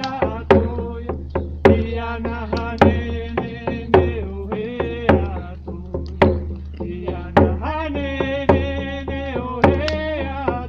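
A chant sung over a drum beaten in a steady rhythm, with a strong stroke about once a second and lighter strokes between.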